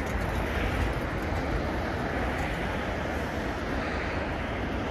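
Steady urban road traffic noise: a continuous hiss and rumble of cars and tyres passing on a busy city road.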